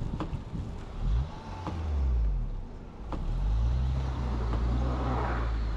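Car engine revving twice, rising in pitch and then holding high, as a car stuck in snow tries to drive out.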